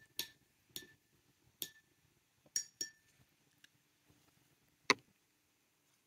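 Light clinks and taps of small glass vessels being handled on a tabletop: about seven scattered ticks, several with a brief high ring, the loudest one near five seconds in.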